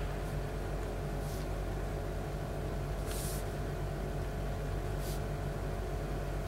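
Steady mechanical hum with several steady low tones. Over it come three brief soft swishes, about one, three and five seconds in, the strongest near the middle: the ink brush stroking across the calligraphy paper.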